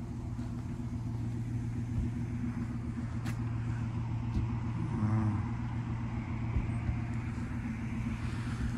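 A motor vehicle's engine running steadily, a low even hum, with a faint click about three seconds in.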